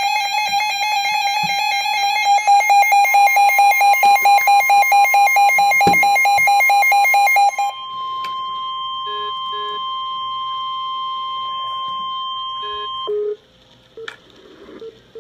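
Emergency alert tones announcing a severe thunderstorm warning. A loud pulsing electronic alarm beep is joined about three seconds in by a steady higher alert tone. The beeping stops about halfway, and the steady tone runs on until it cuts off abruptly about two seconds before the end.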